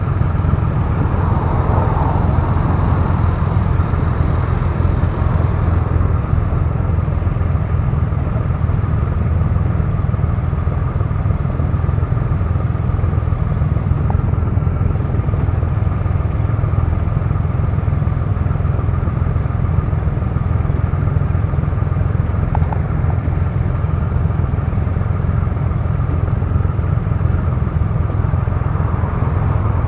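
Triumph Rocket III Classic's 2.3-litre three-cylinder engine running steadily while the bike rides at low speed, a constant low drone with no marked revving.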